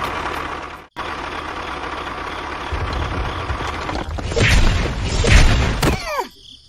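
Engine running steadily with a deep rumble that grows louder about three seconds in, broken by a brief cut just under a second in. Near the end comes a sharp click and a short falling whistle.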